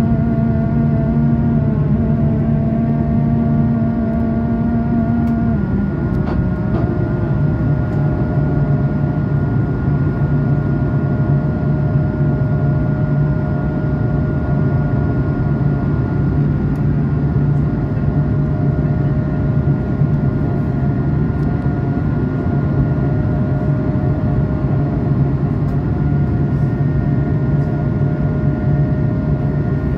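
Steady cabin roar of an Airbus A220-300 climbing out after takeoff, from its Pratt & Whitney PW1500G geared turbofans and the rushing air, with a low hum of steady tones. One of the hum tones drops slightly and stops about six seconds in.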